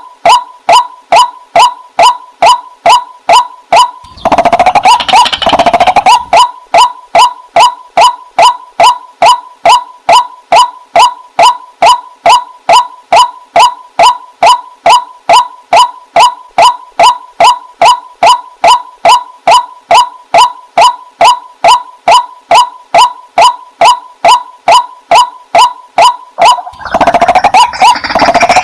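Waterhen (jal murgi) calling, a long run of short, evenly repeated notes at about two and a half a second. About four seconds in and again near the end, a louder, denser jumble of sound overlaps the calls for a couple of seconds.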